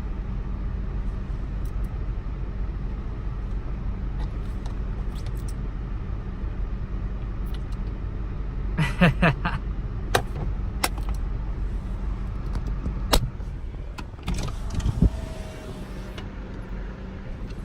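Car engine idling with a steady low hum, heard from inside the cabin, with a few sharp clicks and taps in the second half.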